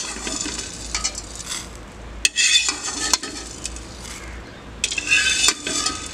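Perforated metal skimmer scraping across the bottom of an aluminium karahi, scooping up dry-roasted whole spices, with the seeds rattling on the metal. It comes in three short scraping passes, each with a sharp metal-on-metal click.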